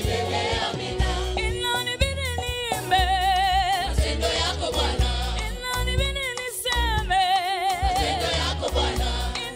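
Live gospel band and singers performing a Swahili praise song. Twice a lead voice holds a long note with a wide vibrato, over bass and drums keeping a steady beat.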